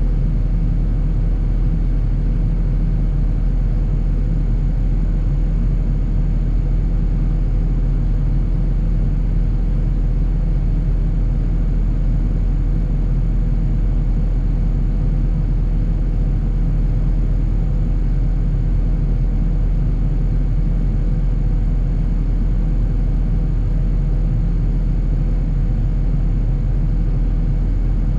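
John Deere 250G excavator's diesel engine running steadily under work, a constant low rumble with no changes in pace.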